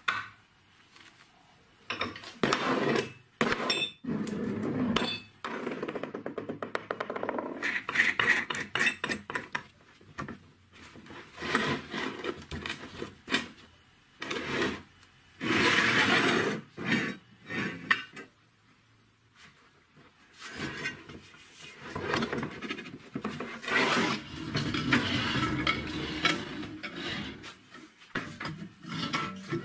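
Steel workshop parts being handled and fitted: clinks, knocks and scraping of metal on metal, in separate bursts with short pauses between them.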